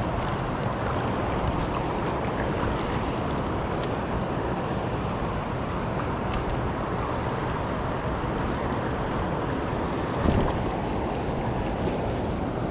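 Steady rushing noise of river water, with wind on the microphone.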